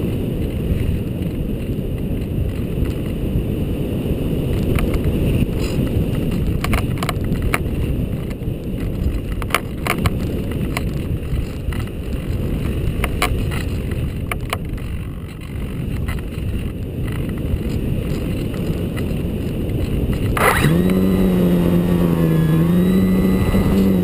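Wind rushing over the GoPro on a ParkZone Radian glider in flight, with scattered light clicks. About twenty seconds in, the glider's electric motor and propeller start, a steady hum that wavers and then dips slightly in pitch near the end.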